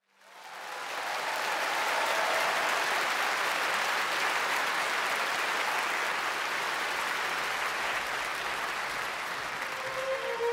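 Concert audience applauding, fading in over the first second and then holding steady. Near the end a violin starts to play over the dying applause.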